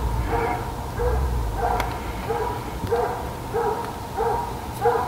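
Coyote hound barking steadily, about three barks every two seconds: a hound giving voice as it runs a coyote track.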